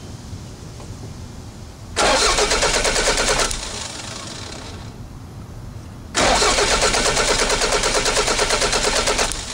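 Toyota MR2 turbo's 3S-GTE engine turned over on the starter motor in two bursts of cranking, about a second and a half and then about three seconds, with an even, rapid pulse. The spark plugs sit out of the head in their coil packs for a spark and firing-order test, so the engine cranks without catching.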